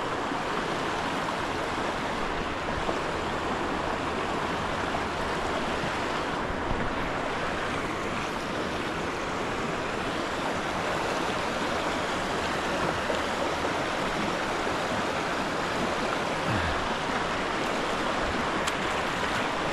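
Creek water rushing steadily through a shallow rapid.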